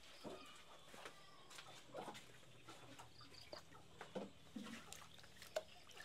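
Near silence, with faint scattered crackles and knocks from a small charcoal-and-wood cooking fire burning under a pot, and a short high three-note chirp about three seconds in.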